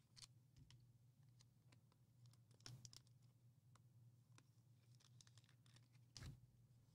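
Near silence: a faint steady low hum with a few scattered soft clicks and taps, the loudest a little after two and a half seconds and just past six seconds in.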